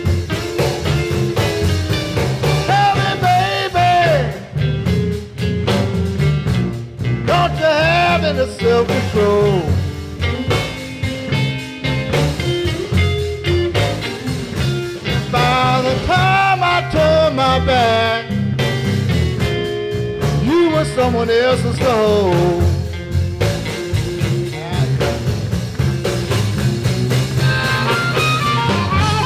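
Blues band playing an instrumental break: electric guitar soloing with bent notes over drums and upright bass. Harmonica comes in near the end.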